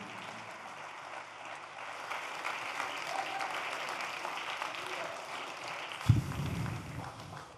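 Studio audience applauding, fading toward the end, with one sharp thump about six seconds in followed by a brief low rumble.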